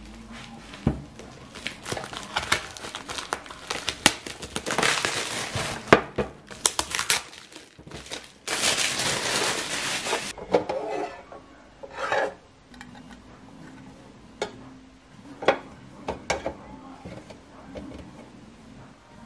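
Packaging crinkling and rustling while a small clear plastic nine-drawer organizer is unboxed, with many sharp plastic clicks mixed in. From about ten seconds in, the crinkling stops and there are only a few separate knocks and clacks as the plastic drawer unit is handled and set down on the table.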